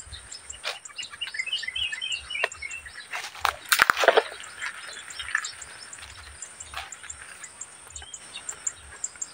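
Birds chirping in the trees, a quick run of short chirps about a second in, with a loud brief rustle about four seconds in.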